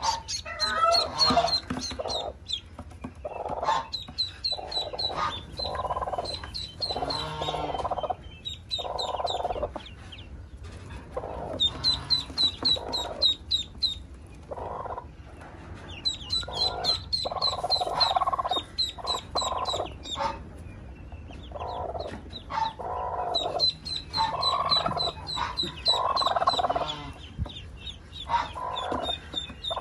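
Newly hatched ducklings peeping in quick runs of short high chirps, mixed with the lower repeated clucking of the broody hen they hatched under.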